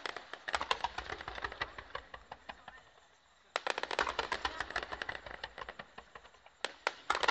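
Aerial fireworks crackling overhead, a rapid clatter of many small pops. It dies away after about two and a half seconds, then breaks out again a second later just as densely.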